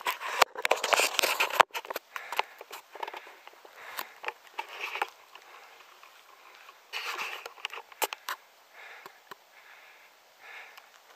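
Rustling and crackling close to a handheld camera's microphone, in uneven bursts with scattered clicks, loudest in the first couple of seconds and fading to faint, regular puffs near the end.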